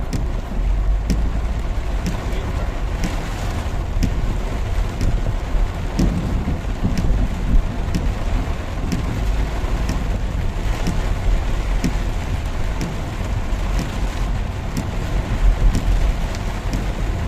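Heavy rain pouring down, with scattered sharp ticks of drops striking close by over a steady low rumble.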